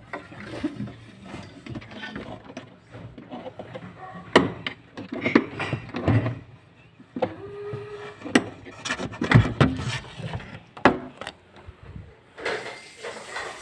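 Irregular clattering from objects being handled: a string of knocks and clicks at uneven intervals, several of them loud, with a brief squeak about eight seconds in.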